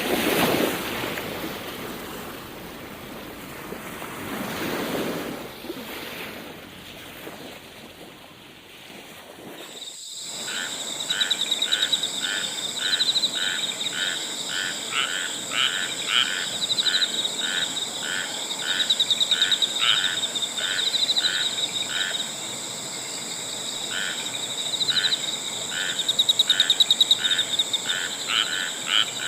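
Frogs calling at night in a chorus of short repeated croaks, about two a second, coming in bouts over a steady high-pitched drone. The chorus starts abruptly about ten seconds in. Before it there is a rushing noise that swells and fades.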